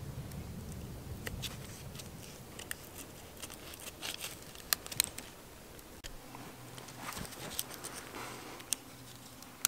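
Knife cutting through dried, cured bacon on a stone, with soft scraping and many small scattered clicks, a couple of sharper clicks about halfway.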